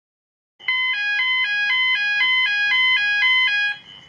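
Electronic two-tone warning signal, its two notes alternating about four times a second for about three seconds, then cutting off suddenly. A faint steady high tone carries on after it.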